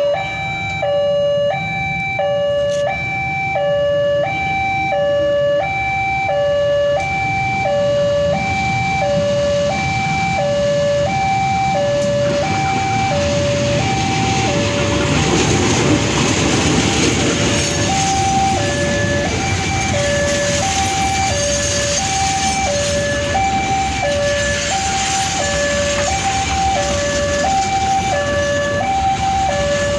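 Railway level-crossing alarm sounding a two-note ding-dong, switching between the notes about every half second. Under it the CC201 diesel-electric locomotive and its passenger coaches rumble past, loudest from about the middle on as the locomotive reaches the crossing.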